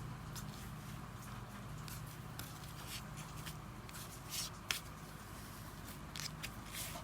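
Hands squishing and working sand slime: scattered short crackly squishes, with one sharp click a little over halfway through, over a steady low hum.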